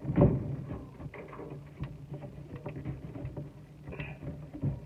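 Clicking, tapping and scraping of a water supply line's threaded nut being turned hand-tight onto its fitting under a sink. A knock comes just after the start and another near the end.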